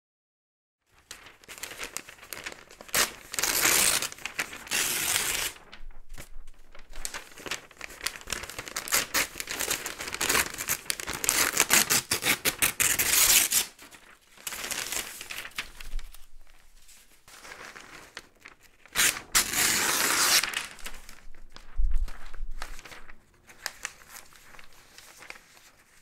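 Pieces of paper torn up by hand: a run of rips, some long and drawn out and some short, with brief pauses between. The tearing starts after about a second of silence.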